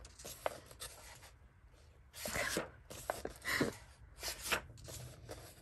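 Paper pages of a paperback coloring book rustling as they are turned and smoothed flat by hand, a series of soft swishes and rubs in the second half.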